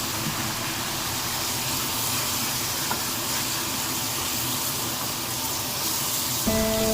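Steady hiss of beef cooking in a pot on the stove. Background music comes back in near the end.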